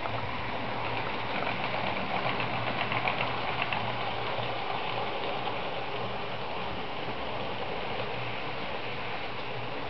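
OO-gauge model trains running on the layout: a steady rattling hum of small electric motors and wheels on the track. It grows louder, with quick small clicks, from about one to four seconds in as trains pass close by.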